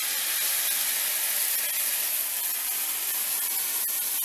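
A nest of noodles deep-frying in hot oil in a cast-iron skillet: a steady sizzling hiss.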